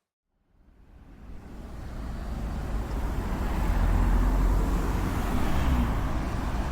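Low, steady rumble of a moving vehicle fading in over the first couple of seconds and then holding steady.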